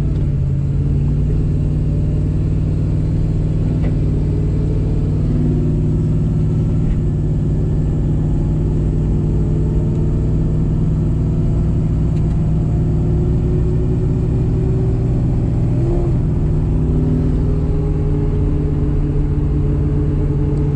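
2003 Ford Mustang Mach 1's supercharged V8 pulling the car along at a steady cruise. Its pitch holds nearly level after picking up speed.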